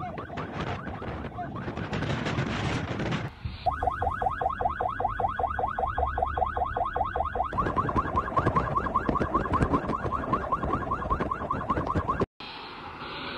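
A vehicle's electronic siren warbling in fast repeated chirps, about seven a second, with a change of pattern a little past halfway; it cuts off abruptly near the end. Before it comes in, wind rumbles and hisses on the microphone.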